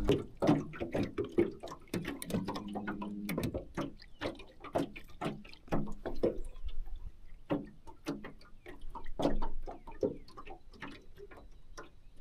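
Spinning reel clicking and ticking irregularly while a hooked crappie is played and reeled in. A faint steady hum sounds in the first few seconds.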